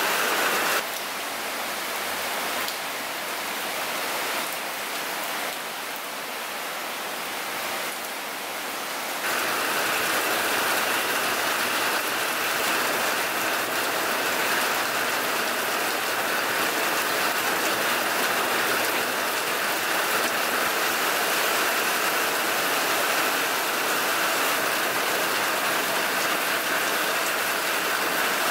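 Heavy rain falling steadily onto open pond water. It is softer for about eight seconds near the start, then comes back louder and denser from about nine seconds in.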